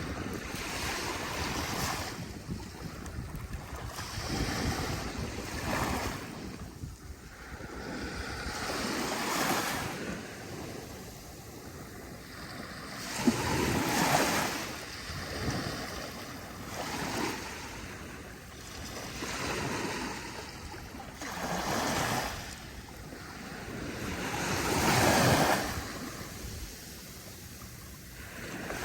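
Ocean surf breaking on a beach, the wash of the waves swelling and fading every few seconds, with the loudest wave breaking near the end.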